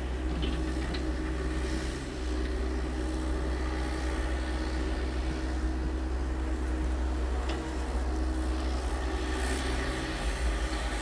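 Diesel engine of a Yanmar mini excavator running steadily, with a couple of light knocks from the machine.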